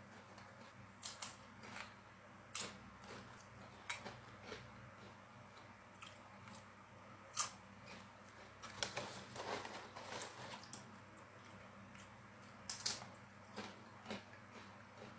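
Potato chips being bitten and chewed: sharp, crisp crunches at irregular intervals, with a denser run of crackling about nine to ten seconds in as the foil snack bag is handled.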